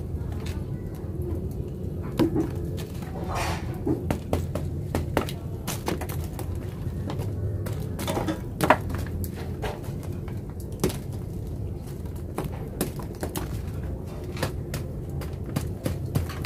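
Irregular knocks and cracks of a hand-held stone striking the sun-hard baked mud crust around a clay-roasted duck, breaking the crust open and knocking chunks of dried clay loose, over a steady low background hum.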